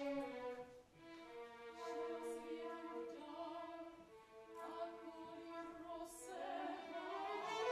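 Operetta soprano singing in long held notes with orchestral accompaniment, swelling louder near the end.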